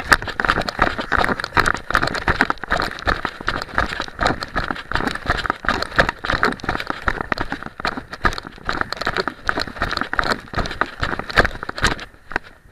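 Dense, irregular rustling, crackling and knocking from an arm-mounted camera jostled as its wearer moves. It dies down near the end.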